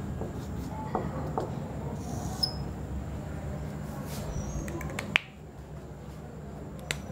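Whiteboard marker squeaking in short strokes on the board, followed by a few sharp clicks, the loudest about five seconds in, over a steady low room hum.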